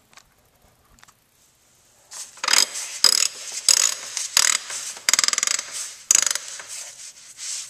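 Heat-resistant fabric suppressor cover being slid and worked onto a rifle suppressor: a run of irregular scraping, rubbing strokes of cloth on metal, some with a rapid rasping texture, starting about two seconds in.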